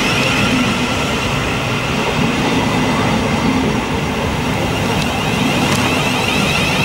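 Thameslink Class 700 electric multiple unit moving alongside the platform: a steady rumble of wheels on rail with high whining tones from the train running close by.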